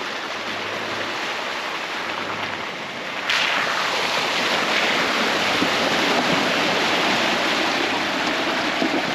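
Toyota 300 Series Land Cruiser driving through a muddy puddle: steady rushing and sloshing of water pushed aside by the tyres, growing suddenly louder a little over three seconds in as the vehicle reaches the camera.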